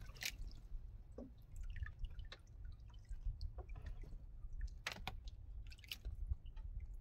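A person chewing a mouthful of vinegar-stewed fish, with soft wet clicks and squishes and a few sharper ticks, over a low steady rumble.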